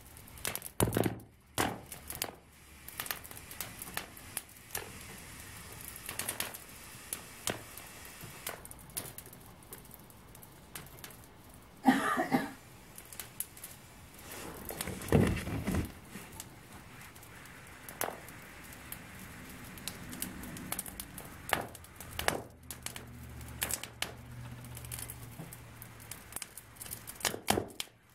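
Balloon slowly deflating inside a papier-mâché shell: irregular crackles, ticks and crinkles as the rubber shrinks and peels away from the pasted paper, with two louder crackling bursts about twelve and fifteen seconds in.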